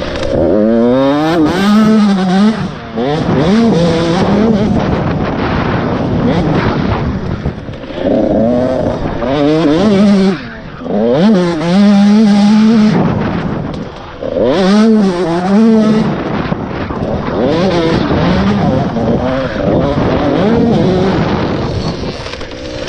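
Husqvarna TC 85 two-stroke dirt bike engine revving hard, heard onboard. Its pitch repeatedly climbs and drops as the rider works the throttle and gears, with a few brief lulls when the throttle is shut.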